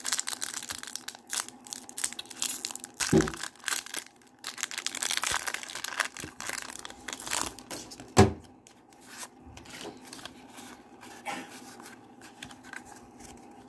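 Foil wrapper of a Pokémon booster pack being torn open and crinkled, then the cards slid out and handled, with fainter rustling in the later part. A dull bump about eight seconds in is the loudest moment.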